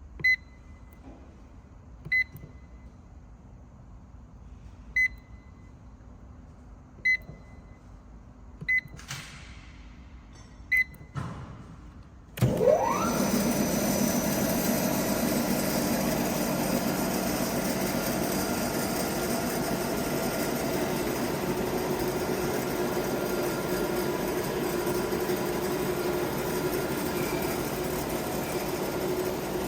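Six short electronic beeps a second or two apart from the control panel of an RS31EI CNC electric sawmill, then its 7.5 kW electric motor starts about twelve seconds in with a quick rising whine and runs steadily and loudly.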